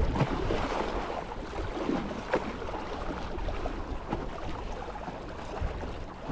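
Wind buffeting the microphone over sea water lapping, with one sharp click about two and a half seconds in.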